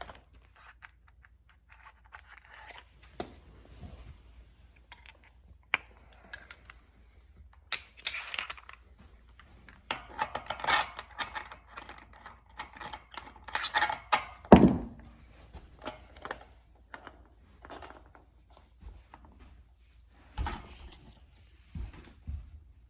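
Scattered metallic clicks, taps and clatter of hand tools and BMX bike parts being handled during assembly, with one louder knock about two-thirds of the way through.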